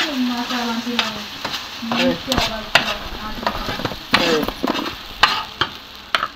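Recheado masala paste sizzling in hot oil in a frying pan while a metal spoon stirs and scrapes it, the spoon striking the pan in irregular clicks.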